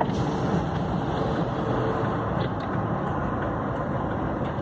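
Steady road and engine noise heard from inside the cabin of a moving car.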